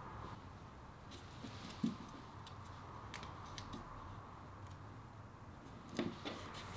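Quiet handling sounds: a soft knock about two seconds in and another near the end, with light taps and paper rustles as things are moved on a small desk shelf and a postcard is pressed onto the wall. A faint steady hum sits underneath.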